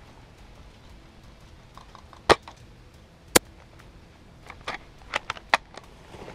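Sharp snaps and clicks from a spring-powered Tokyo Marui VSR-10 G-Spec airsoft sniper rifle: a loud snap, another a second later, then a quick run of four or five clicks, typical of a shot followed by the bolt being cycled.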